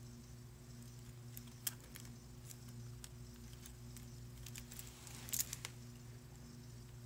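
Faint light clicks and taps of small nail-swatching items being handled, with a quick cluster of clicks about five seconds in, over a steady low hum.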